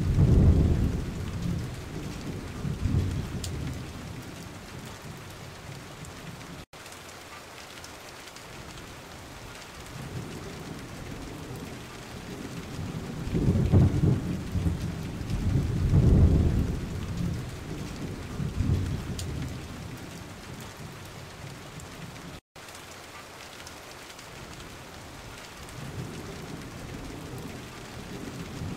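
Steady rain with rolling thunder: long low rumbles swell near the start, again about midway and once more near the end, over a constant hiss of rain.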